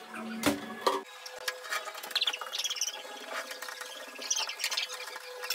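Short high squeaks of the glass shower screen being wiped by hand, coming several times in the second half. They follow two sharp knocks about half a second in and a low hum that cuts off at about a second.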